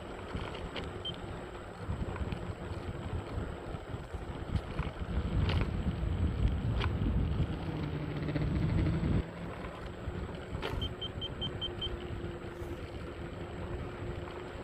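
Ninebot Mini Pro self-balancing scooter riding fast: a steady rumble of tyres and motor with wind on the microphone, growing heavier for several seconds and dropping off abruptly about nine seconds in. A few sharp clicks and a short string of faint high beeps come later.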